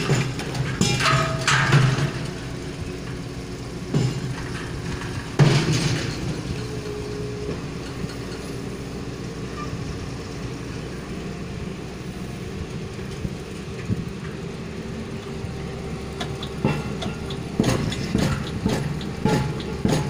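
Pile-driving rigs' engines running steadily at a piling site, with irregular metallic knocks and clanks from the rigs. A few come near the start, two stand out in the middle, and a quicker run of them comes near the end.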